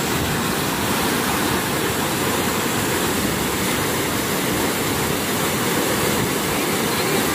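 Canal water rushing steadily through an opening in a concrete bridge or sluice, churning white as it falls into the water below.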